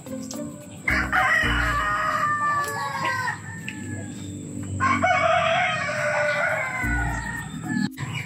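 Roosters crowing, two long crows of about two and a half seconds each, the second starting about two seconds after the first ends.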